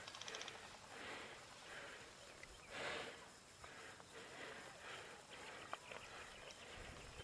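Faint footsteps on rough ground, about one step a second.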